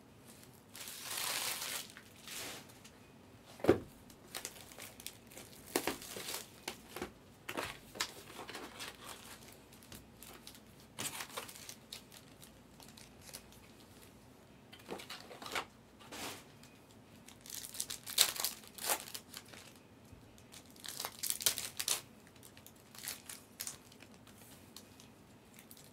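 Foil wrappers of Optic basketball card packs crinkling and being torn open in irregular bursts. There is a sharp knock about four seconds in.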